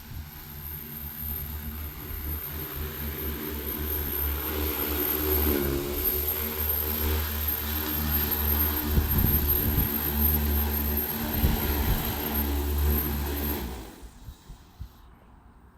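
AF-X25 agricultural spraying drone's multirotor propellers running as it comes in to land, growing louder over the first few seconds; the motors cut off about fourteen seconds in, once it is down.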